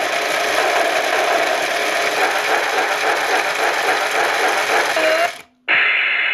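Toy steam-locomotive alarm clock going off: a loud, noisy hiss-and-rattle train sound with its motor turning the spinning wheels. It cuts off about five seconds in, and a short loud burst with a low hum follows near the end.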